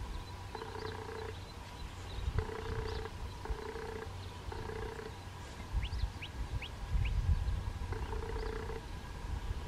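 An African wildcat purring in short, even phrases about a second apart while her kittens nurse. A few quick, high, falling bird chirps come in about six seconds in.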